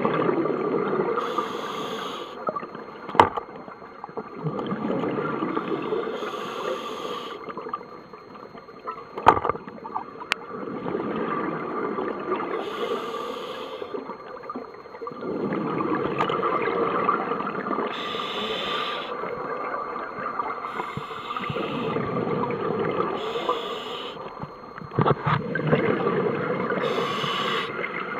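Scuba diver breathing through a regulator underwater: a short hiss on each inhale, then a long bubbling rush of exhaust bubbles on each exhale, about every four to five seconds, with a few sharp knocks now and then.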